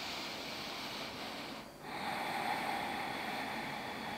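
A person breathing deeply and slowly: one long breath, a short break under two seconds in, then a second, longer breath.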